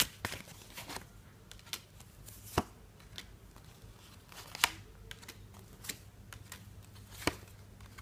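Tarot cards being laid down one by one on a tabletop: a few light, sharp taps spaced a second or more apart, the loudest about two and a half and four and a half seconds in.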